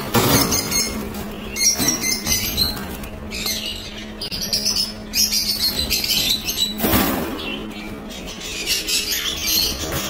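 Many caged lovebirds and small parrots chattering together in a dense mix of shrill chirps and squawks, with louder bursts near the start and about seven seconds in. A steady low hum runs underneath.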